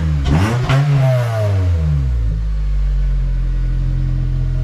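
Honda CR-V's 2.4-litre K24Z1 four-cylinder engine running with its catalytic converter gutted. It is revved up once and falls back to a steady idle about two seconds in.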